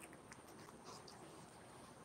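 Near silence: room tone with a faint steady high whine and a few faint ticks.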